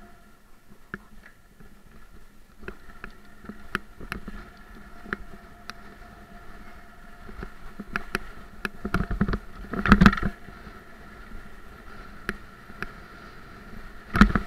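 Electric-assist motor of a Haibike Trekking 4.0 e-bike running with a steady whine while the bike rides a rough sandy dirt track. Frequent sharp clicks and rattles come from the bike over bumps, with louder rumbling jolts about nine to ten seconds in and again near the end.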